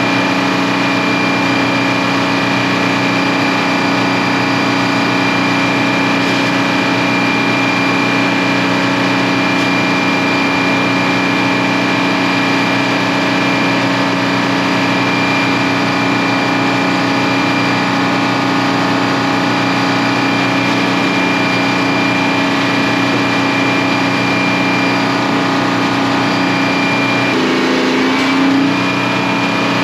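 Sawmill's stationary diesel power unit running at a steady speed, with a steady high whine above the engine note. Near the end the engine note briefly dips and shifts, as under a momentary load.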